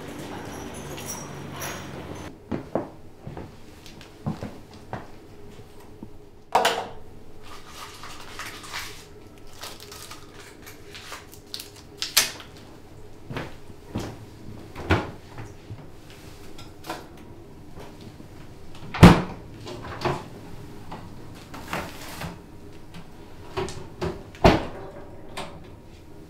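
Scattered knocks, clicks and bumps of someone moving about a small kitchen, like cupboard doors, footsteps and things being handled, over a faint steady hum. The loudest knock comes about three-quarters of the way through.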